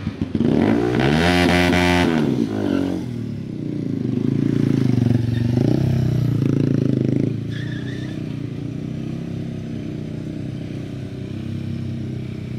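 Motorcycle engine revved hard, its pitch rising and falling back over about two seconds, then revving and running loudly until about seven seconds in, when it settles to a steadier, quieter running sound.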